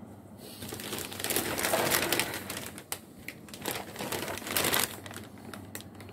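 A thin plastic bag crinkling as it is handled, in two long rustling bouts with a few separate sharp crackles between and after them.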